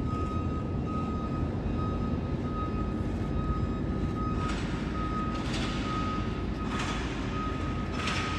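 Vehicle engine running with a reversing alarm beeping in a steady repeating pattern of one high tone. Over the second half come four short hisses about a second apart.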